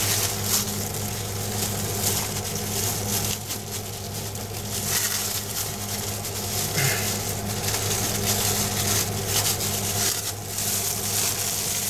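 Clear plastic glove crinkling and rustling as a hand presses and smooths fiberglass cloth into place, over a steady low hum.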